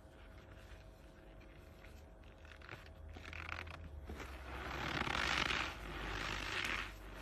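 A hand squeezing and crumbling a packed lump of cornstarch powder, a soft crunching that builds up. It is loudest in two squeezes in the last few seconds.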